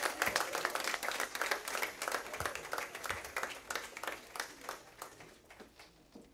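A group of people clapping, the applause thinning out and fading away over several seconds until only a few scattered claps remain near the end.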